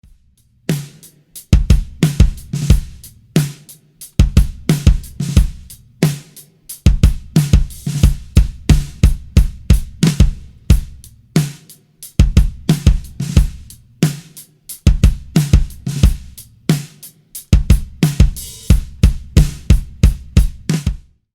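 Drum kit played in a groove, with bass drum kicks struck by a pedal beater under snare, hi-hat and cymbals, in several phrases with short breaks.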